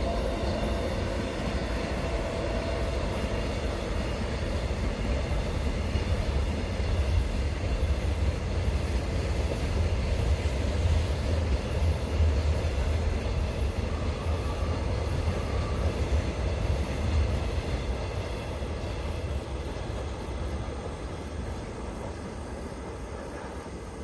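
A container freight train rolling past with a steady, heavy rumble of wheels and wagons that fades as it draws away. A brief steady whine about two-thirds of the way through.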